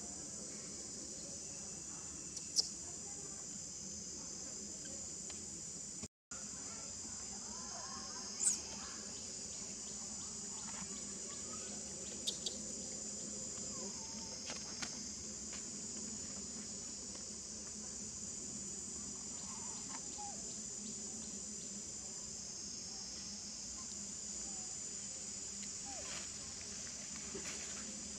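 Steady high-pitched chorus of insects trilling without a break, with a few brief sharp chirps and ticks over it. The sound drops out for a moment about six seconds in.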